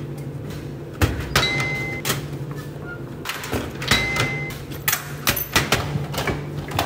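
Vending machine in use: a low steady machine hum, a short electronic beep twice, and repeated clicks and clunks as items clatter in the pickup bin and are pulled out by hand.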